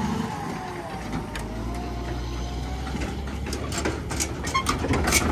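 Diesel semi-truck pulling an aluminium livestock trailer, driving slowly past with a steady low engine hum and a faint wavering whine. Rattling clanks thicken over the last couple of seconds.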